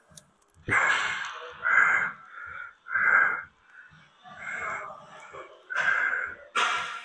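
A man's short, strained breaths out, one with each rep of a cable overhead triceps extension: about six of them, roughly a second apart.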